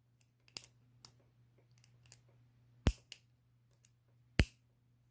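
Lock pick pushing pins in a vintage Yale 5-pin tumbler padlock: scattered sharp metallic clicks, with two louder ones about three and four and a half seconds in. The pins click without the plug opening.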